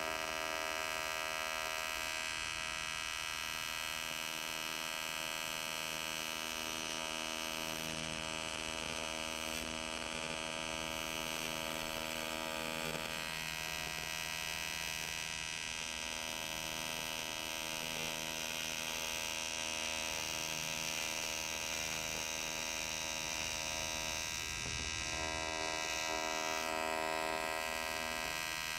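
TIG welding arc buzzing steadily as filler rod is fed in, welding the aluminum case of a Ford manual transmission to rebuild its broken clutch fork pivot ball boss.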